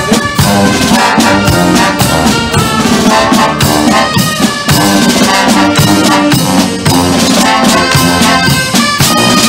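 Police marching band playing: brass instruments carry the tune over drum beats that keep a steady rhythm.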